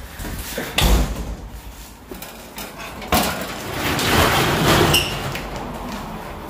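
Knocks and clatter of things being handled, with a couple of sharp knocks and a stretch of rustling about four seconds in.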